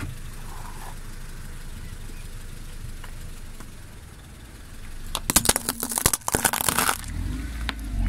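A car tyre rolls over a glitter-painted glass light bulb, which shatters in a rapid burst of sharp cracks and crunches starting about five seconds in and lasting about two seconds. The car's engine runs low underneath and swells into a low rumble near the end.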